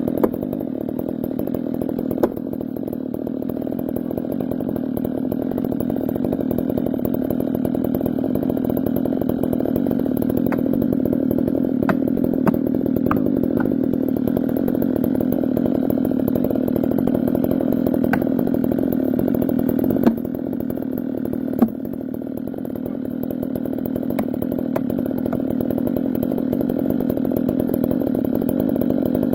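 Chainsaw running steadily without a break, with a few short sharp knocks, the clearest about two seconds in and two more about two-thirds of the way through.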